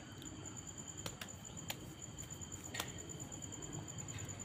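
Crickets chirping in a steady, rapidly pulsing high trill, with a few faint clicks scattered through it.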